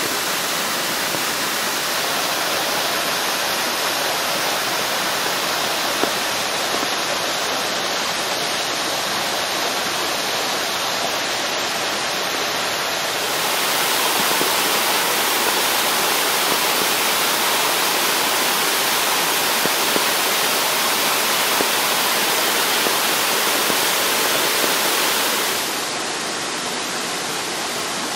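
Rain-swollen mountain stream and cascades rushing over boulders: a steady roar of white water. It grows louder about halfway through and drops back near the end.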